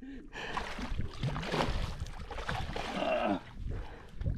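Water splashing and sloshing as a large hooked fish thrashes at the surface while it is landed by hand.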